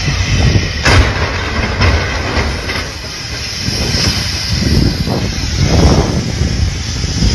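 Traffic noise on a snowbound highway: a continuous rumble with a sharp knock about a second in.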